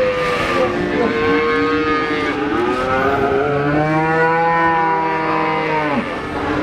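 Cattle mooing: a run of long, drawn-out moos one after another, some overlapping. The deepest and longest starts about three and a half seconds in and lasts about two and a half seconds.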